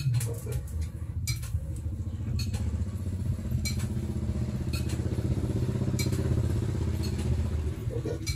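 A small engine running steadily, a low even hum, with a few light clicks and clinks of the steel bill hook blade being handled as it is fitted into its bamboo handle.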